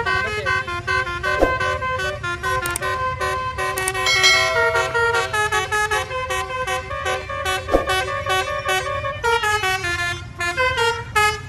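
Tour bus's multi-tone 'telolet basuri' melody horn playing a fast tune of short stepping notes, with a few brief pauses, stopping just before the end.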